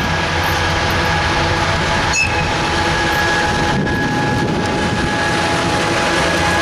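Two-section 2M62UM diesel freight locomotive passing close under power with hopper wagons, its engines giving a loud, steady drone over the rumble of wheels on rail. A brief click with a short high squeak comes about two seconds in.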